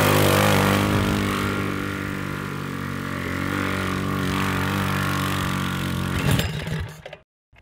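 The GY6-powered Yerf Dog Spiderbox off-road go kart's small single-cylinder scooter engine running at a fairly steady speed as the kart drives along. The engine sound breaks up about six seconds in and gives way to a moment of silence near the end.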